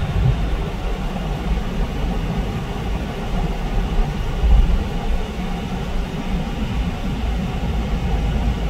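Steady low road and engine rumble of a moving car, heard from inside the cabin, swelling briefly about halfway through.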